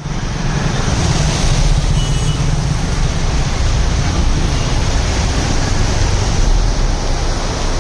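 Steady street traffic noise from vehicles on rain-waterlogged roads, with a heavy low rumble under an even hiss.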